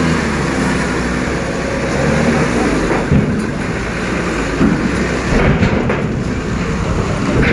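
Heavy vehicle engines running. A truck's steady low engine hum fades in the first second, then a coach bus drives slowly down the pontoon ramp toward the listener, with a single knock about three seconds in.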